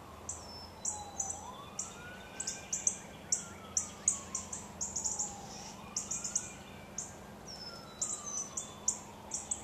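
Small birds chirping in rapid, short, high notes, over a fainter siren slowly wailing up and down.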